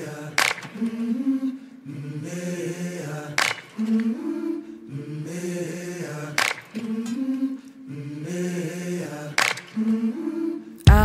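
Recorded music for a dance: slow, chant-like wordless group vocals holding chords that change every second or two, with a sharp percussive hit about every three seconds. Near the end a heavier hit lands and the music grows fuller and louder.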